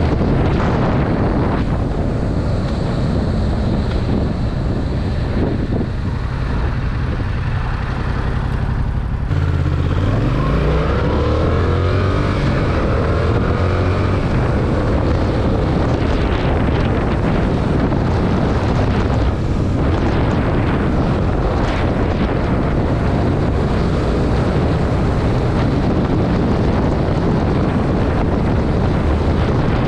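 Yamaha MT-07 (2021) with its stock exhaust, 689 cc parallel-twin engine running under way, with wind buffeting the microphone. About nine seconds in the engine note climbs as the bike accelerates, then settles back into a steady cruise.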